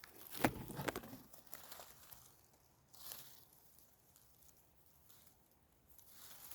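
Crunching and crackling in dry forest litter, a quick cluster in the first second, then a few fainter rustles about three and six seconds in.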